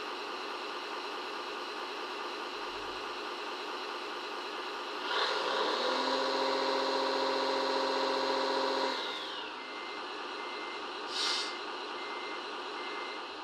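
An RC model's small electric motor whines at a steady pitch for about four seconds, then winds down with a falling pitch, over a constant background hiss. A short hiss follows about eleven seconds in, then faint regular beeps.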